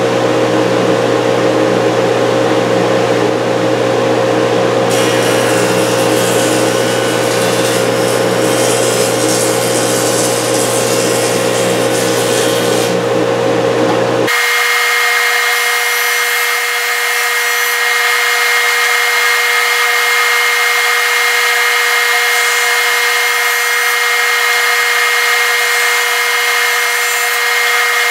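A jointer running, its cutterhead knives taking boards along their edges, a loud steady machine whine with the hiss of cutting wood laid over it from about five to thirteen seconds in. About halfway through the sound changes abruptly to a thinner, higher whine with the low hum gone.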